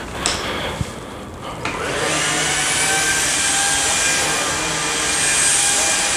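A few sharp clicks, then about two seconds in the Samsung Jet VS70 cordless stick vacuum's motor comes up and runs steadily with a high whine. Its turbo action brush head is working on thick carpet.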